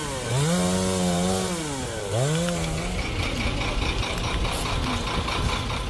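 Two-stroke chainsaw cutting through fallen tree branches, its engine pitch dipping sharply twice and climbing back. After about three seconds it gives way to a steady noisy background with a faint high whine.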